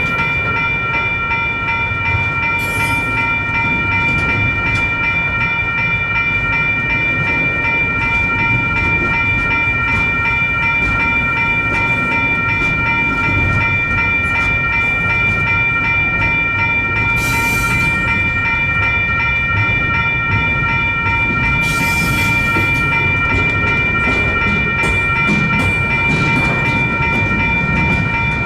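Electronic railroad-crossing bells ringing continuously, a rapidly repeating metallic ding. Beneath them runs the rumble of a freight train rolling through the crossing, with a few sharp wheel clacks near the end.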